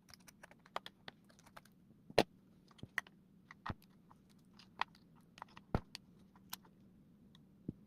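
Irregular light clicks and taps, about two dozen, the loudest a little over two seconds in and just before six seconds, over a faint steady low hum.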